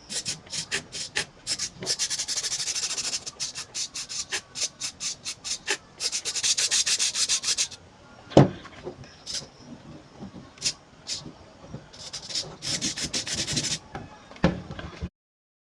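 Homemade miniature RC car steering mechanism being worked: three bursts of rapid clicking rattle, each one to two seconds long, with scattered single clicks between them and a louder knock about eight seconds in. The sound cuts off abruptly near the end.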